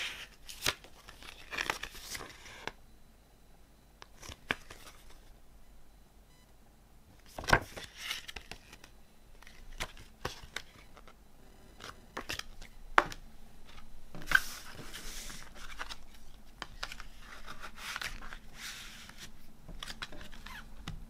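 Cardboard CD digipak and its paper booklet and insert handled by hand: pages and panels rustling as they are turned and unfolded, with scattered sharp taps and clicks of card against card and the table.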